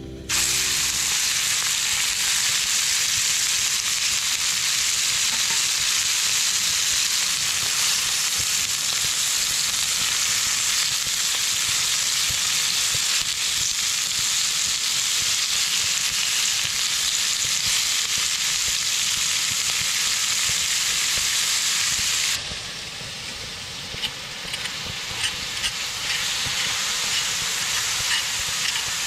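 Minced meat sizzling loudly in hot oil in a cast-iron skillet, starting the moment it goes into the pan. About 22 seconds in the sizzle drops suddenly to a quieter frying, with short clicks as the meat is stirred with a turner.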